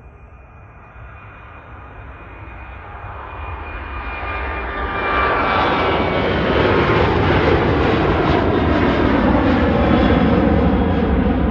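Jet engines of a Southwest Airlines Boeing 737 at takeoff power as it lifts off and climbs out. The noise swells over the first five seconds or so, then stays loud, with whining tones sliding down in pitch as the airliner passes.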